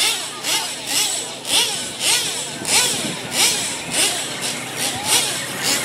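Radio-controlled monster truck's motor revving in regular surges, rising and falling in pitch a little under twice a second with a hiss on each surge, as the truck pulls a weighted sled across dirt.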